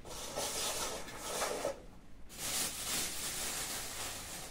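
Two stretches of rubbing and rustling with a short pause between: hands working torn bread pieces in a metal pot, then a clear plastic bag crinkling as it is handled.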